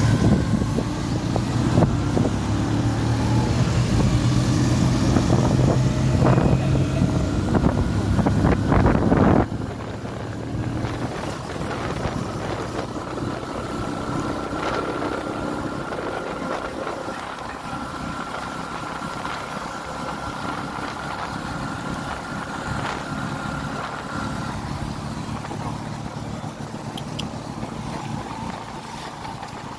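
Motorcycle engine running and road noise, heard from the passenger seat while riding in traffic. It is loudest for the first nine seconds, then drops suddenly to a quieter, steady hum of riding and traffic.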